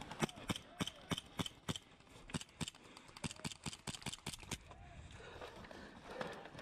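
Airsoft gun shots: a quick, uneven string of sharp cracks, about four a second, that stops about four and a half seconds in.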